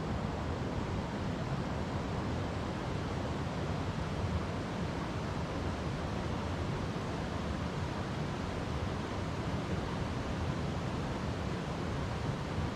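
River water flowing over rocks: a steady, even rush with no breaks, weighted toward the low end.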